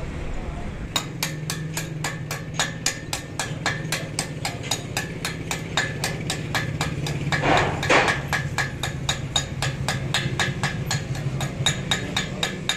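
Chipping hammer rapidly tapping welding slag off a fresh weld bead on a truck axle housing, about four light metal strikes a second, over a steady low hum. A louder burst of noise comes about seven and a half seconds in.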